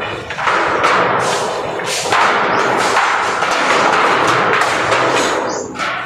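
Water gushing and splashing into a water tank, a loud steady rushing that swells and eases.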